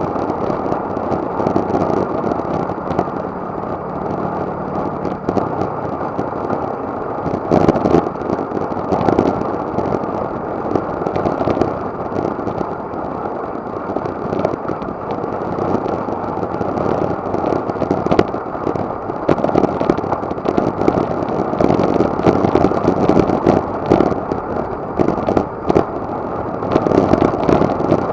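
Wind rushing over a bike-mounted action camera's microphone with tyre and road noise during a road bike ride, swelling and buffeting unevenly; a faint steady hum fades out about five seconds in.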